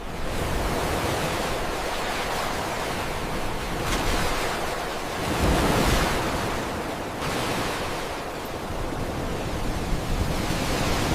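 Ocean surf: a steady wash of breaking waves, swelling louder about five to seven seconds in.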